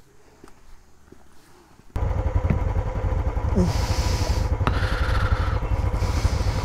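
Quiet for about two seconds, then, starting suddenly about two seconds in, a loud, steady low rumble with a faint steady whine over it.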